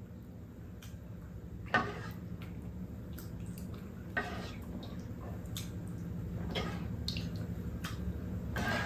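Wooden ladle scooping thick chicken curry from a pot and tipping it into a ceramic bowl: wet plops and light knocks of the ladle against pot and bowl, with four larger scoops about two seconds apart over a low steady hum.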